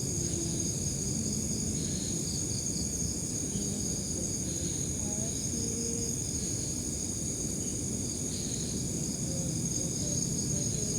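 Insects calling steadily: a continuous high-pitched drone with a pulsing chirp just below it, over a low rumbling background.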